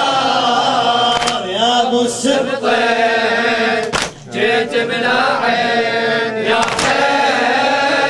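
Men chanting a Shia latmiya lament chorus in unison, with a sharp slap of chest-beating (latm) three times, about every three seconds, in time with the chant.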